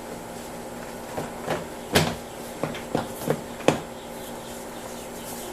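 Car door parts being handled during a door-handle and door-panel job: a scattered series of about seven light clicks and knocks, the loudest about two seconds in.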